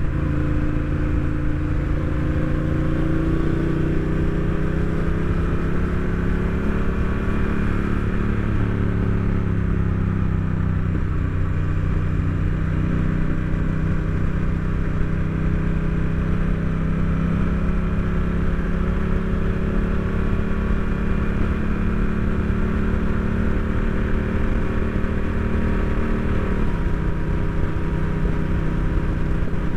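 Honda Rebel 1100 DCT's parallel-twin engine pulling under way, with wind rush over the bike. The engine note climbs slowly, eases down, holds steady for a long stretch, then steps down sharply near the end as the automatic dual-clutch gearbox changes up.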